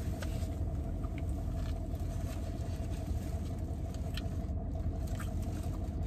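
Steady low hum of a car idling, heard from inside the cabin, with a few faint crinkles and clicks as a paper-wrapped sandwich is handled and eaten.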